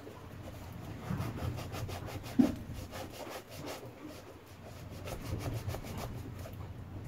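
Knife blade carving and scraping a groove into a hard foam fishing buoy, in repeated short rasping strokes, with one louder knock about two and a half seconds in.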